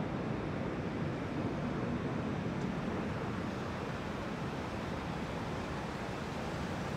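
Steady rush of wind over the microphone and road noise from a bicycle riding along a paved path.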